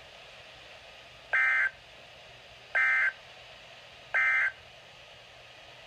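Emergency Alert System end-of-message data tones on NOAA Weather Radio: three identical short bursts of digital data tone, about a second and a half apart, closing the alert. Faint radio static hisses between the bursts.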